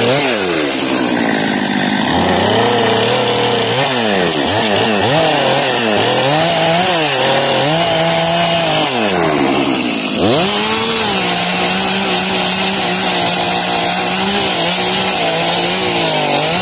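Stihl MS 400 C chainsaw's two-stroke engine running under load as it cuts wood, its pitch dipping and climbing again and again as the chain bites. About ten seconds in it dips sharply, recovers, then holds a fairly steady note.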